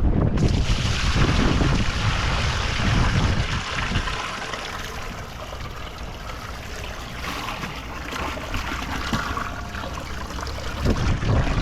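Wind buffeting the microphone outdoors: a heavy low rumble that eases after about four seconds and returns near the end, with a steady rushing hiss in between.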